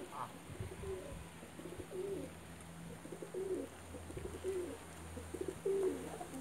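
Domestic pigeons cooing: a run of low, warbling coos, about one a second, from several birds.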